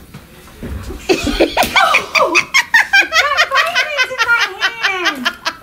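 A woman laughing hard: a quick run of high-pitched laughs from about a second in, ending in one long falling laugh.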